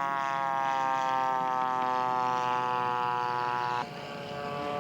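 Radio-control scale model airplane's engine running in flight, its pitch slowly falling; about four seconds in the sound cuts off abruptly and picks up again a little quieter at a different pitch.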